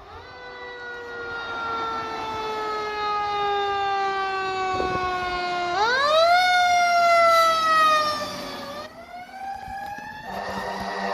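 Fire engine siren winding slowly down in pitch, pushed back up sharply about six seconds in, then sinking and climbing again near the end.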